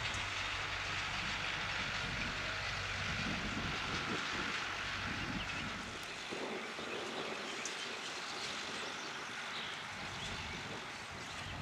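Massey Ferguson 390 tractor running steadily at a distance while pulling a rotary hay rake, with a low engine hum under a steady hiss. The low engine note drops away about halfway through.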